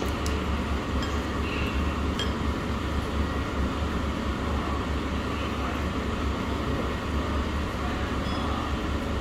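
Steady low-humming background noise of a restaurant dining room, with a few light clinks of tableware in the first couple of seconds.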